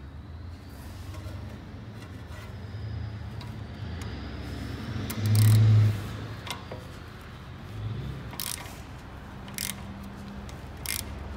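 A wrench straining on a seized rear brake caliper bolt of a Tesla Model S, over a steady low workshop hum. There is a brief loud low hum about five seconds in, and several sharp metallic clicks near the end.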